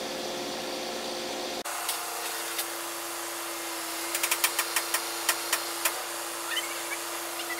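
A loader's engine running steadily. About a second and a half in, the sound changes abruptly to a steadier engine hum, with a run of sharp clicks and ticks around the middle.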